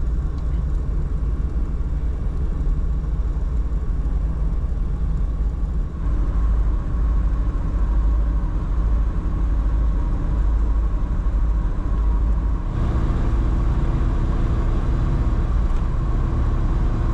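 Interior noise of a 1991 Škoda Favorit 135L on the move: a steady engine drone with tyre and wind noise. It comes in three spliced stretches at rising speed, each change sudden, and the last is at 120 km/h, with the cabin at about 73 dBA.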